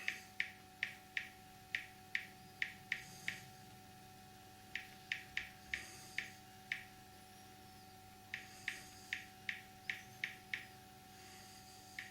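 Key clicks from a smartphone's on-screen keyboard as someone types, in three runs of quick, short clicks at about three a second, with short pauses between the runs.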